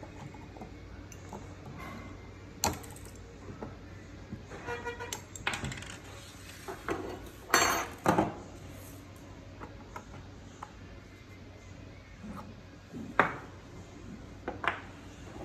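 Small metal parts of a copier fuser unit, its gears, metal end bracket and pliers, clinking and clicking on a wooden tabletop and against each other as the belt unit's end is taken apart. Scattered sharp clinks, loudest about halfway through and again near the end.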